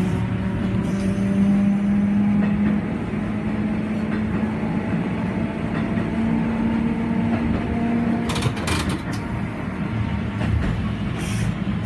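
Okayama Electric Tramway streetcar running along its track, heard from inside the car: a steady low motor hum over the rumble of wheels on rails. The hum dies away about eight seconds in, followed by a few sharp knocks from the wheels and car body.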